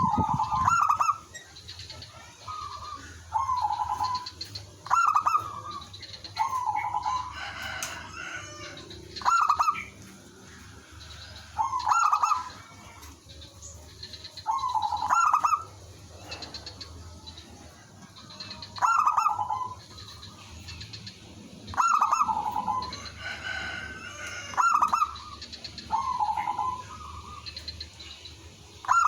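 Several zebra doves cooing and answering one another: short, rapid, stuttering coo phrases repeated every two to three seconds, some overlapping.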